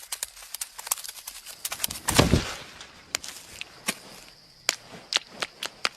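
Dry grass crackling and rustling as an eagle owl hunts on foot, in scattered sharp clicks, with one louder brushing thud about two seconds in.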